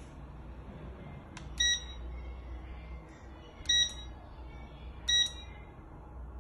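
Electronic beeps from a WeiHeng WH-A23 digital hanging scale as its buttons are pressed: three short, high beeps about two seconds apart, the first just after a faint click.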